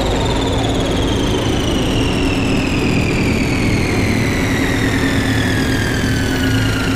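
Electronic music: a high synthesizer tone gliding slowly and steadily downward over a low, steady drone.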